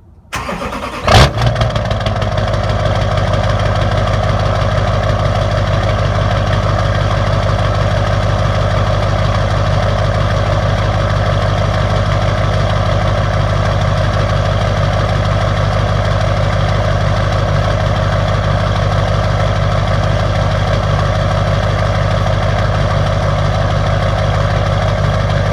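LB7 Duramax 6.6-litre V8 turbodiesel cold-started: a brief crank, catching with a loud burst about a second in, then settling into a steady idle. The owner puts the rough cold start down to bad injectors.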